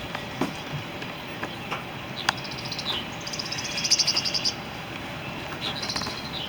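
High, rapid chirping trills from a small animal, heard three times; the middle one is the longest and loudest. A few faint clicks sound between them.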